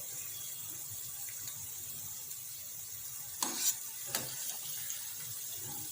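Bread-and-banana dough fritters deep-frying in hot oil with a steady sizzle. A few short sharp clicks come about three and a half and four seconds in.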